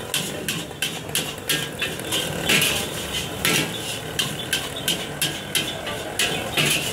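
Long metal spatula striking and scraping a large steel wok as fried rice is stir-fried, sharp clangs and scrapes coming about twice a second.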